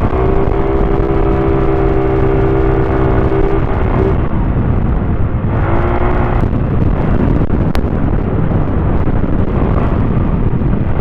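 Heavy wind rush on the microphone of a moving motorcycle cruising on a wet road, with the engine's steady note showing through for the first few seconds and briefly again around the middle.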